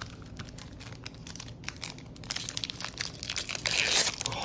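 Foil wrapper of a Pokémon booster pack crinkling and tearing as it is ripped open, with many small crackles that get louder and denser near the end.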